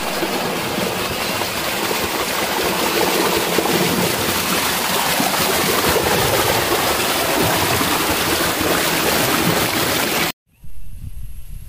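Fast-flowing stream rushing over rocks: a loud, steady rush of water that cuts off abruptly near the end, leaving a much quieter outdoor background.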